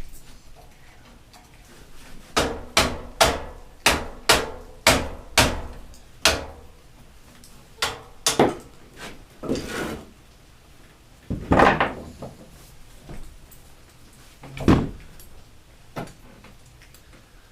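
A run of about eight sharp hammer blows, roughly two a second, then a few scattered single knocks, as a part is knocked into place.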